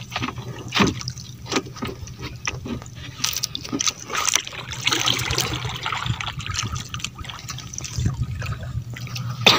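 Water splashing and trickling in irregular bursts, with scattered knocks and clicks, over a steady low hum.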